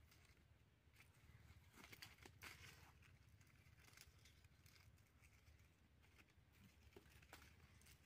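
Faint rustling and crackling of dry fallen leaves being handled on the ground, with a cluster of sharper crackles about two seconds in and a couple more near the end.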